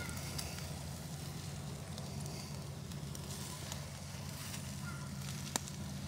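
Campfire embers crackling under a grill grate, with a burger and bacon sizzling on it; scattered small pops over a steady low hiss, and one sharper pop near the end.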